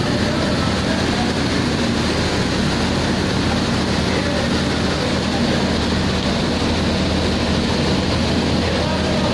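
Magnetic destoner and the grain-cleaning machinery around it running: a steady, even machine drone with a low electric-motor hum.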